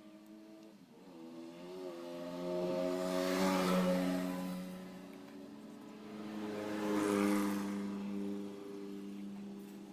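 United (China CT100) 100cc single-cylinder motorcycle engine running, with the throttle opened and closed twice so the sound swells and falls back.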